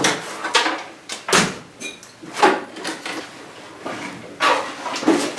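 Irregular sharp knocks and clicks of a Ryobi benchtop bandsaw's wheel cover being unlatched and opened, plastic and metal parts handled.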